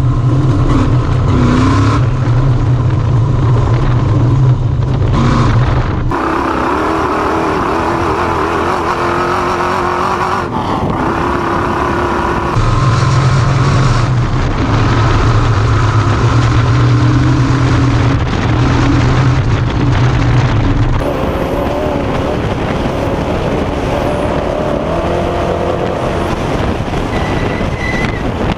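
Off-road race vehicle's engine running hard at sustained high revs, loud and continuous. The tone changes suddenly about six, twelve and twenty-one seconds in.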